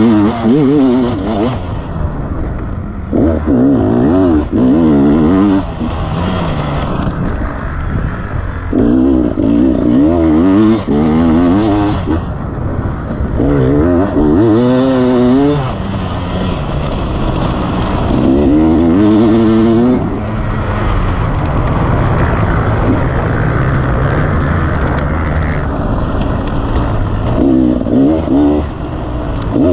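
Dirt bike engine under a rider, the revs climbing and dropping again several times as the throttle is worked, over a steady rushing noise.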